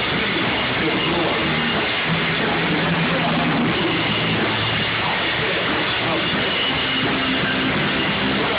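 Rock band playing a loud, dense passage with drums and guitar, held notes ringing over a steady wall of sound.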